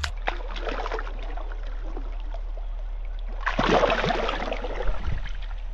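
Shallow river water splashing around hands as a released cod kicks away, loudest about three and a half seconds in, over the steady ripple of the stream.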